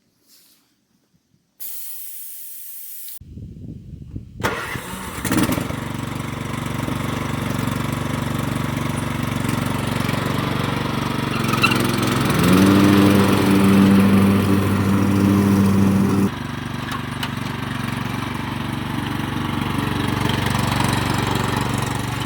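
MTD Yard Machines lawn tractor engine starting and running. About 12 seconds in it speeds up to a stronger, higher steady note, then drops back suddenly about 16 seconds in.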